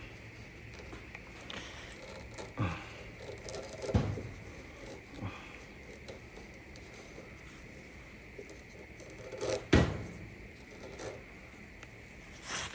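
Scattered knocks and scrapes of dryer parts and tools being handled and set down, the loudest knock close to ten seconds in.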